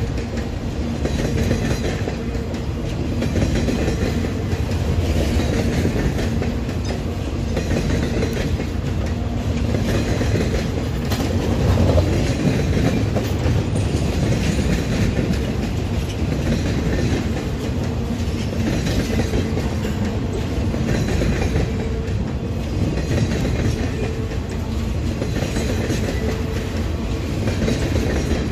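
Freight cars rolling past at close range, their steel wheels clattering over the rail joints in a clatter that swells and fades every couple of seconds as each car's wheels go by.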